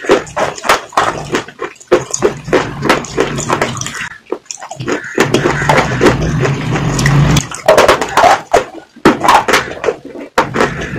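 Close-miked wet mouth sounds: quick lip smacks and mouth clicks in rapid irregular succession, with a denser, continuous wet stretch lasting about two seconds starting about five seconds in.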